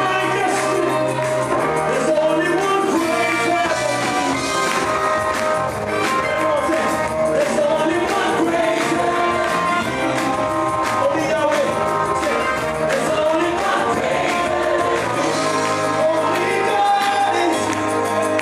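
Live gospel worship music: a band of drums, keyboard and electric guitars with a group of singers, over a steady drum beat.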